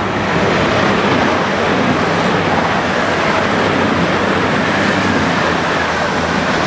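CrossCountry Voyager diesel multiple unit passing through at speed: a loud, steady rush of train noise over the low drone of its underfloor diesel engines, easing slightly near the end as it clears the platform.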